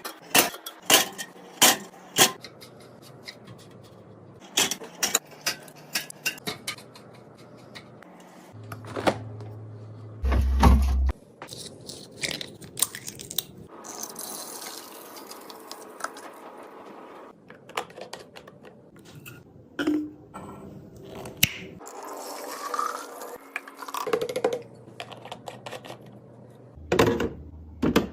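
Fridge restocking: many separate knocks, clinks and scrapes as containers, jars and packages are set down and slid onto refrigerator shelves, with a steady low hum under much of it.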